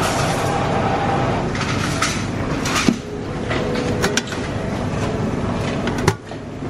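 Steady room noise of a buffet area with a few sharp clinks of metal serving dishes and utensils, about three, four and six seconds in.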